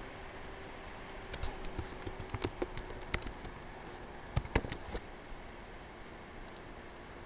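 Typing on a computer keyboard: a run of irregular keystrokes starting about a second in and stopping about five seconds in, over a faint steady hiss.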